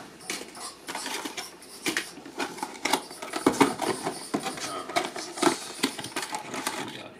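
Small cardboard boxes being shuffled and handled in a shipping carton, one pulled out and its flap opened: an irregular string of taps, scrapes and rustles, busier from about two seconds in.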